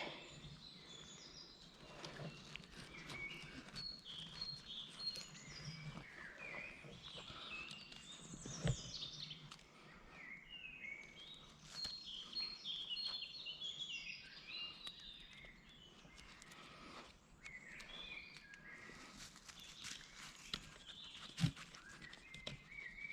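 Birds singing, many short chirping notes throughout, with scattered faint clicks and two louder knocks, one about nine seconds in and one near the end.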